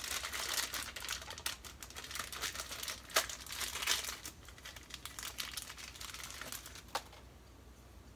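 Plastic wrapping crinkling and rustling with small clicks as a new clutch throwout bearing is unwrapped and handled; it stops about seven seconds in.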